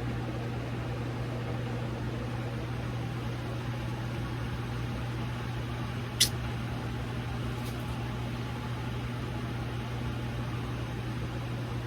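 A steady low mechanical hum, with one sharp click about six seconds in.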